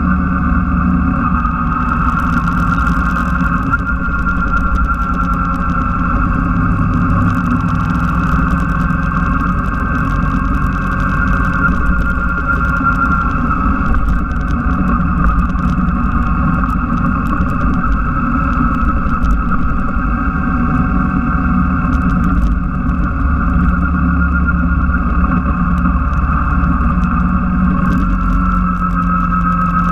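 Yamaha Drag Star V-twin cruiser engine running steadily while the motorcycle is ridden at an even pace, with no clear revving or gear changes.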